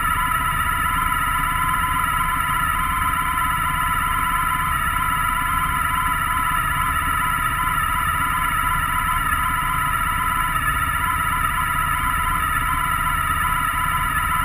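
A vehicle engine idling steadily with an unchanging whine on top and no change in revs.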